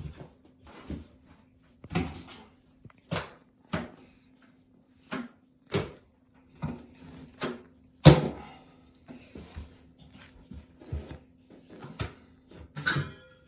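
Trowel scraping and slapping cement across the floor over an electric floor-heating mat, in irregular strokes about once a second, with a louder knock about eight seconds in. A faint steady hum runs underneath.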